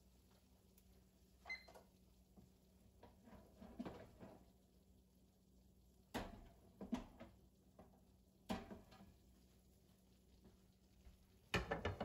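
Scattered knocks and clatters of a toaster oven being opened and a pizza pan being taken out with oven mitts. The loudest is a quick cluster of knocks near the end as the metal pan is set down on the gas stove's grate.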